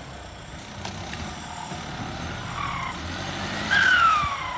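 Kubota L5018SP tractor's diesel engine working under load as its front loader pushes into brush and a stump. Near the end a loud squeal rises over the engine and falls steadily in pitch for about a second.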